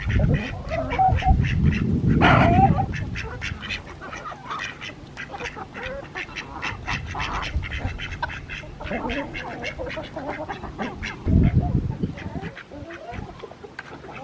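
Domestic ducks quacking in a fast, even run of calls, about three to four a second, with one louder call about two seconds in. Low rumbles come near the start and again about eleven seconds in.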